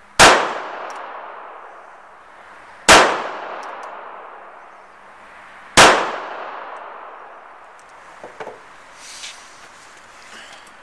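Three handgun shots, evenly spaced about three seconds apart, each ringing out and fading, followed by a few faint handling clicks.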